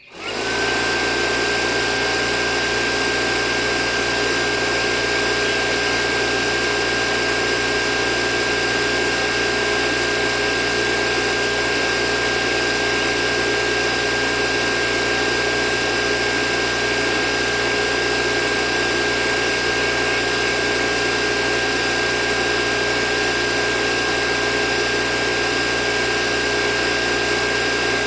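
Small homemade DC motor, belt-driving a mini water pump, starting as its wires are connected: it spins up within a fraction of a second, then runs with a steady high whine over a constant hum.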